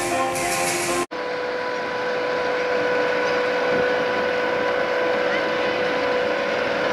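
Live band music, cut off sharply about a second in. Then the engine of a harbour tour boat runs with a steady, even hum, over a background of voices.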